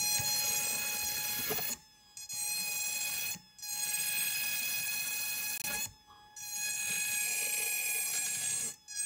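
A small handheld electric rotary grinder wet-grinding a window into a jade boulder: a high-pitched whine that runs in spells of one to two and a half seconds, stopping briefly between them.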